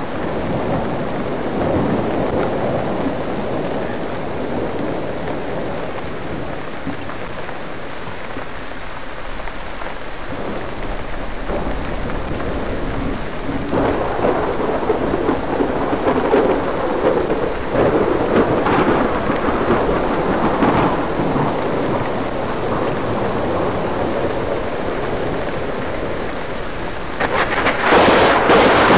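Heavy rain pouring down in a thunderstorm, with thunder rumbling and swelling in waves through the middle. The rain gets suddenly louder and hissier near the end.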